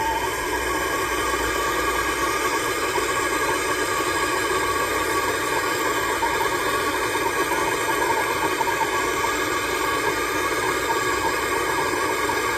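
Handheld gas soldering torch burning with a steady hiss, its flame heating a copper water pipe joint for sweat-soldering.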